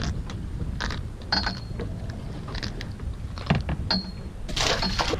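Light metallic clicks and clinks from fishing tackle handled against the boat's metal rail, two of them ringing briefly, over a low steady rumble.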